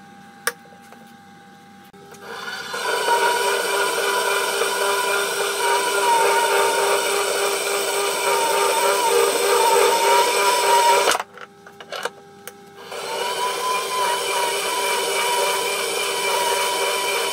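Electric portable band saw cutting through scrap metal round bar, running with a steady tone and a higher, wavering ring from the blade in the cut. The sound starts about two seconds in and cuts off abruptly around eleven seconds. A few clicks follow, then the saw is cutting again from about thirteen seconds.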